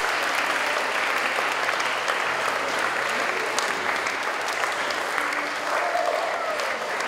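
An audience clapping steadily, with a few voices in the crowd.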